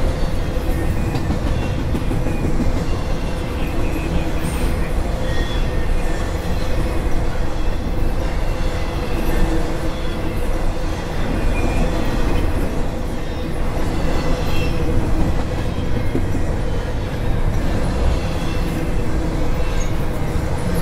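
Double-stack intermodal well cars rolling past on steel wheels: a steady rumble and clatter on the rails with a constant hum. Brief high squeals from the wheels come now and then.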